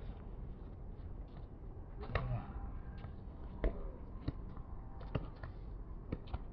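Outdoor pickup basketball: a basketball bouncing on the hard court and players' shoes on the surface during a fast break, heard as irregular sharp knocks, the loudest a little past halfway. A brief shout about two seconds in.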